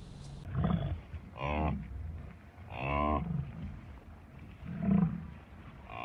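American bison mooing: four short, low calls at uneven intervals, the longest about three seconds in and the loudest about five seconds in.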